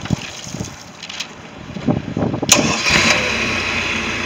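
MerCruiser 3.0L four-cylinder sterndrive engine running at idle on a flushing hose. For about a second it is quieter and uneven, with a few thumps and a sharp knock about halfway through, then it runs steady and louder again near the end.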